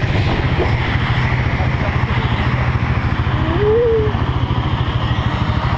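Quad bike engine running steadily with a fast, even putter. A short voice rises and falls in pitch about three and a half seconds in.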